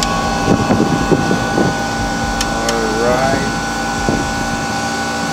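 Several dull knocks as a front wheel is rocked by hand, over a steady hum of several tones.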